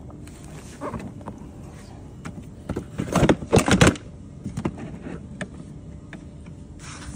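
Handling knocks and rattles on a plastic ride-on toy car as the seat is set in place: a few light knocks, then a burst of clattering about three seconds in.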